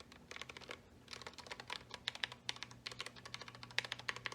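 Keys of a new 65% mechanical keyboard being pressed in quick, irregular runs of clicks, typing on it to try out how it sounds.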